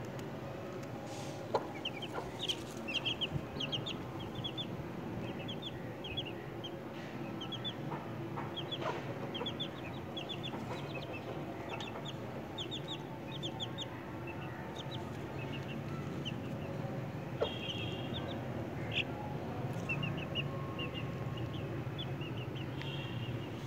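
Eighteen-day-old Aseel chicks peeping: short high cheeps in quick runs of three to six, repeated throughout, over a steady low background hum. A couple of sharp taps stand out, one about a second and a half in and one past the middle.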